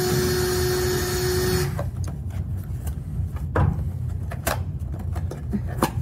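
Handheld power drill running at a steady speed with an even whine, stopping about one and a half seconds in; a few light knocks and clicks follow.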